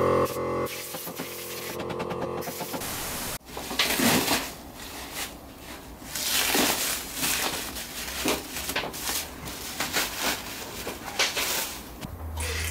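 Clear plastic stretch wrap crinkling and crackling in irregular bursts as it is handled and pulled off a car part.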